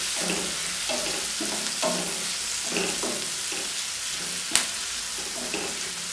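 Sliced onions, garlic, ginger and green chillies sizzling in butter in a kadhai while a spatula stirs them, each stroke scraping the pan about twice a second. One sharp tick about four and a half seconds in.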